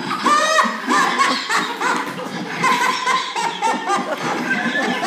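Several children laughing at once, in quick overlapping bursts.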